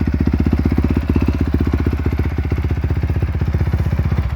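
2020 Honda CRF450's single-cylinder four-stroke engine idling, a steady even exhaust beat of about a dozen pulses a second, which stops abruptly near the end.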